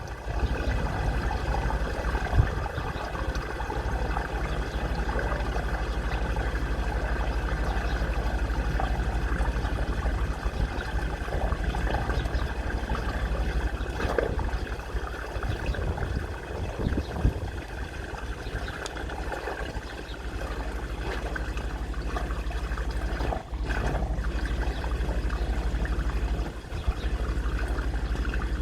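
High-pressure drain jetting: a steady rush of water spraying and flowing through the drain over a steady low hum, with a couple of brief drops in the flow late on.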